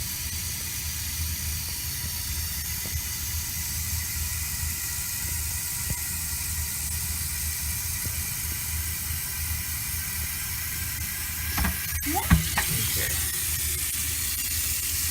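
Water tap running steadily as a steady hiss, with a few plastic knocks and clunks of the humidifier tank being handled about two-thirds of the way through.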